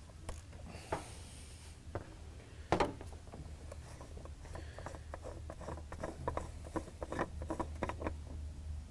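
Fuel filter lid on a Ford 7.3L Power Stroke's fuel bowl being loosened with a ratchet, then unscrewed by hand. Scattered light clicks and rubbing, with a sharper click about three seconds in and a run of quick small clicks in the second half, over a low steady hum.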